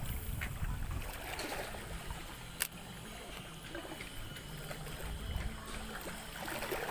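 Shallow seawater lapping and trickling among shoreline rocks over a steady low rumble, with one sharp click about two and a half seconds in.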